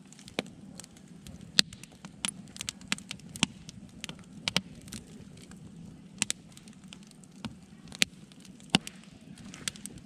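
Split-log wood campfire crackling: irregular sharp pops and snaps, the loudest about one and a half seconds in and about eight seconds in, over a faint steady low noise.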